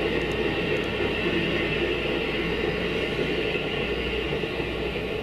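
Amtrak passenger train's last cars rolling past on the tracks. The steady rumble and rail noise eases off slightly as the train clears the crossing.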